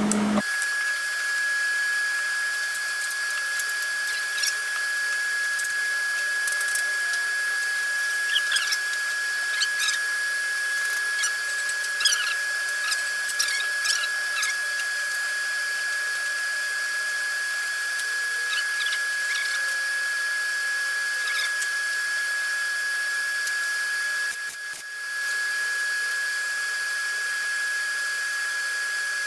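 Electric power tool running steadily with a high, even whine and scattered small scratching ticks. The level drops briefly about three-quarters of the way through, then comes back up.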